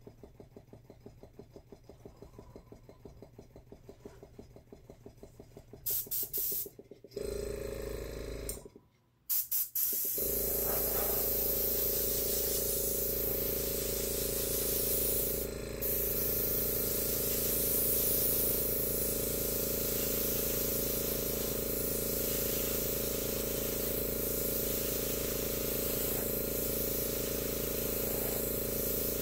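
Airbrush air compressor humming steadily, with air hissing from the airbrush, coming on about ten seconds in after a few short bursts. The compressor keeps running because the airbrush setup is losing air.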